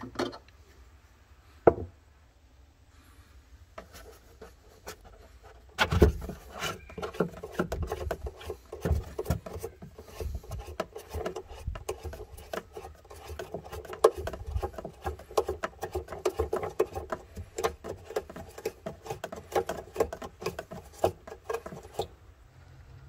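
Hands working plastic trunk-floor parts and fasteners around a car's spare-wheel-well subwoofer enclosure: irregular clicking, knocking and scraping. It is mostly quiet for the first few seconds apart from one sharp click, then a heavy thump starts a dense run of handling noise that stops shortly before the end.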